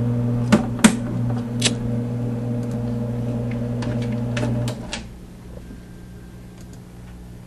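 Singer Caramate II SP slide projector's motor humming steadily, with a few sharp clicks, then switched off near five seconds in, after which the hum dies away.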